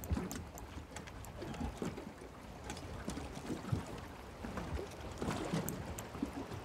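Water lapping and gurgling against a small boat's hull, with scattered light clicks and knocks.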